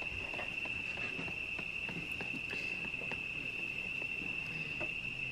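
Faint clicks and scrapes of a knife cutting set fruit paste in a metal baking tray, over a steady high-pitched insect trill.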